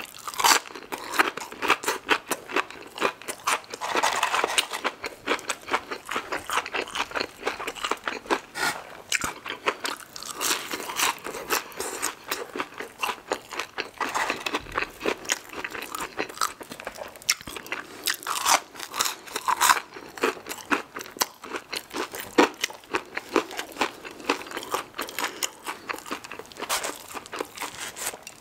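Close-up crunching and chewing of an extra-crispy fried buffalo chicken nugget dipped in sauce: a steady run of crisp crackles as the breaded coating is bitten and chewed.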